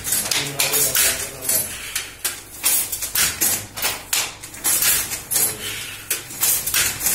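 Wooden handloom being worked by hand: a steady run of sharp wooden and metal clacks and rattles, about two to three a second, from the batten and the border mechanism.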